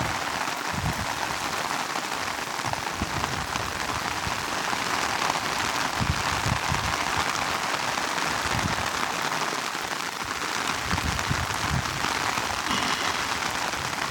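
Steady hiss of rushing river water, with irregular low bumps underneath.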